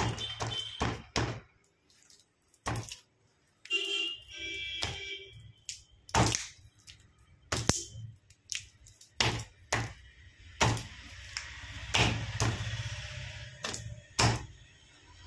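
A bare hand beating a lump of hard Dalda vegetable shortening against a stone counter to soften it: irregular dull slaps and squishes, about one or two a second, with a longer smearing rub near the end as the softened fat is spread.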